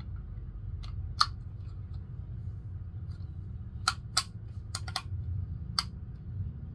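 Plastic parts of a toy dart blaster's ammo chain being pressed together: about seven sharp clicks and snaps at uneven intervals, the loudest about a second in and around four seconds in, over a steady low rumble.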